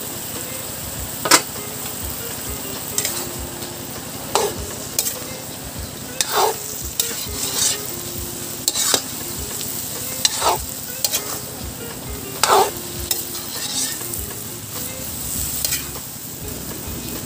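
Metal ladle scraping and stirring chopped bottle gourd and chicken in a metal wok, one stroke every second or two, over a steady sizzle of the simmering pan.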